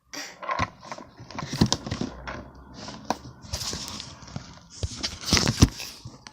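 Irregular clattering and knocking of small objects being handled close to the microphone, with a few sharper knocks about five and a half seconds in.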